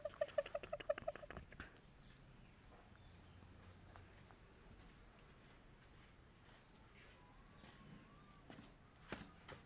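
Faint, high insect chirps repeating evenly about twice a second. In the first second and a half a rapid pulsed animal call fades out, and a few soft clicks come near the end.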